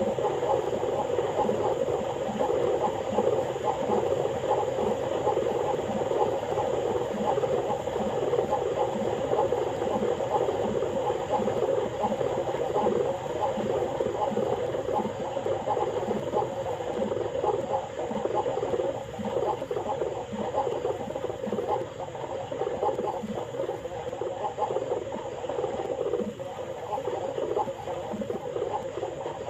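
Domestic pigeons cooing in a steady murmuring chorus, with a low coo repeating about once a second.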